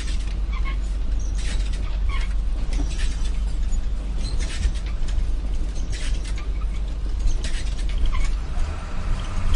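Plastic toy car-carrier truck pushed by hand across a tiled floor: a steady low rumble from its rolling wheels with scattered clicks and creaks of the plastic body and loaded toy cars.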